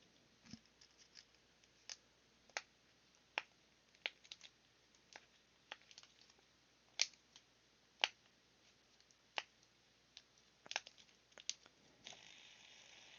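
Faint, irregularly spaced sharp clicks and taps, about fifteen of them, from handling and flicking a large plastic fidget spinner.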